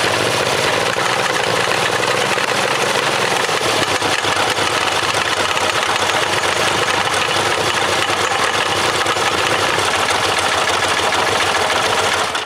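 Homemade three-cylinder flathead engine, built from three 5 hp Briggs & Stratton single-cylinder engines chain-linked to fire evenly 1-2-3, running steadily. Its speed wavers up and down a little in the first few seconds, then holds steady.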